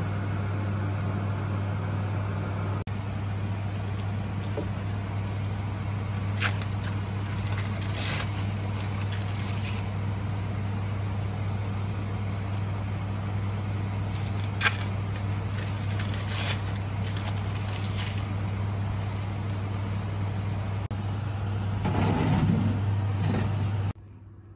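Electric kitchen fan running with a steady low hum and a wash of air noise. A handful of sharp crackles are heard, like hot fat spitting on the baking tray.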